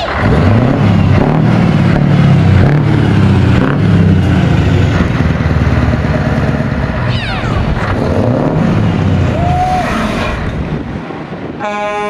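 Scania 164L V8 diesel tractor unit pulling away hard and driving past, its engine note rising and falling repeatedly as it accelerates through the gears. Near the end a horn starts sounding.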